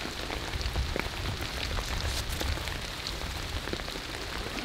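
Steady rain falling, with many separate drops striking close by, over a low rumble.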